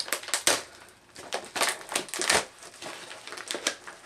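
Crinkling and rustling of a pink metallic plastic shipping mailer being handled, in irregular sharp crackles.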